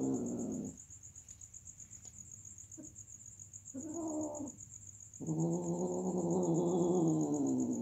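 Domestic cat yowling during mating: a call trailing off just after the start, a short call about four seconds in, and a long drawn-out call from about five seconds in that sinks a little in pitch. Crickets chirp steadily underneath.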